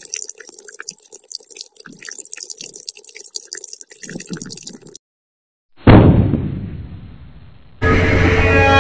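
Irregular small clicks and drip-like crackle, cut off abruptly by a moment of dead silence. Then a sudden loud boom that dies away over about two seconds, and near the end a loud steady horn-like tone over a heavy rumble.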